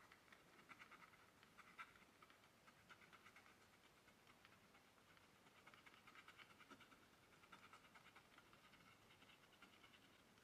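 Faint, scratchy strokes of an oil pastel rubbed quickly back and forth on paper, in short runs with brief pauses between them.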